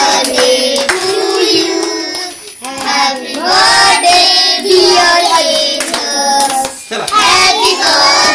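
A group of children and adults singing together while clapping along, as the birthday cake is cut; the singing pauses briefly twice between lines.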